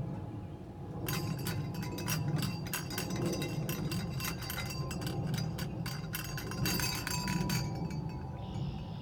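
Wind rumbling against the microphone. From about a second in, rapid light clinking with ringing tones, which stops shortly before the end.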